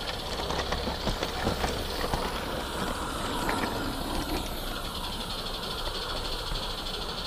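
A small live steam garden-railway locomotive running with a freight train, its steam hissing steadily, heard from aboard one of the wagons. Irregular clicks of the wagon wheels over the track come mostly in the first couple of seconds.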